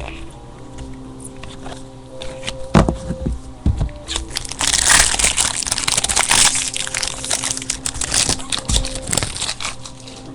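Packaging of a trading-card box being torn and crinkled as it is opened: a couple of knocks about three seconds in, then about five seconds of dense crinkling and tearing.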